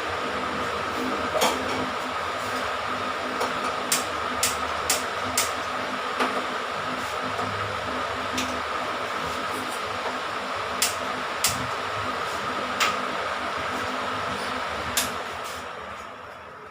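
Steady hiss of a stove heating a pan of water, with a faint high whine and scattered sharp clicks of metal; it dies down near the end.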